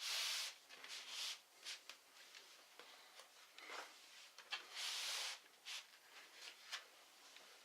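Hands working on laptop parts: short scraping rustles, the loudest right at the start and about five seconds in, with scattered light clicks and taps between.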